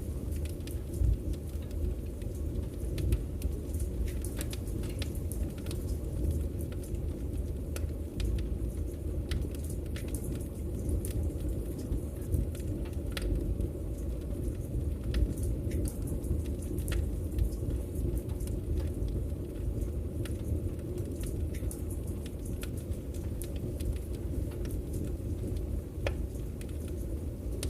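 Wood fire crackling: irregular sharp pops and snaps scattered over a steady low rumble.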